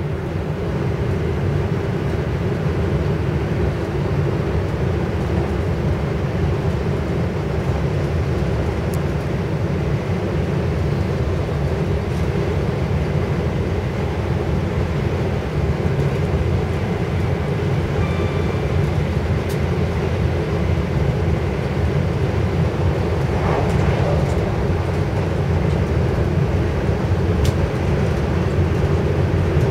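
Inside the passenger saloon of a Class 170 Turbostar diesel multiple unit on the move: a steady low rumble from the running train, with a few faint ticks.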